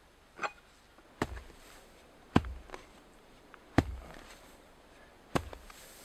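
Axe blows chopping into turf and soil: four heavy strikes with a dull thud, roughly one every second and a half.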